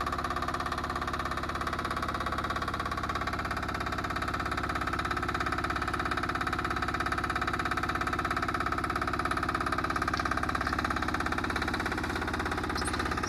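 Small engine of a walk-behind double-drum roller running steadily as the roller is driven down a trailer ramp, with an even, fast pulsing throb.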